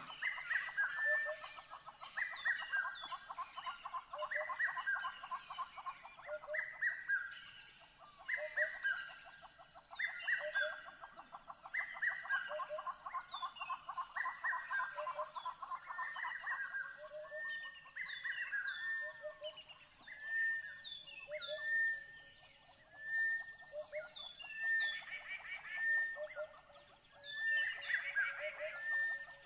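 Repeated high chirping and twittering animal calls, short upswept notes mixed with fast trilling, running on and off throughout.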